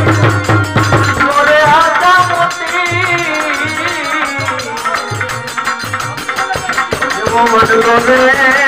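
Devotional bhajan music: tabla playing a steady rhythm of low drum strokes under a harmonium and a man's singing. It softens in the middle and swells again near the end.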